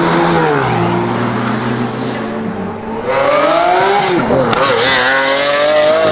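A sports car engine revving hard. Its pitch falls in the first second, climbs again from about three seconds in, dips briefly about four seconds in, then rises steadily to a high whine.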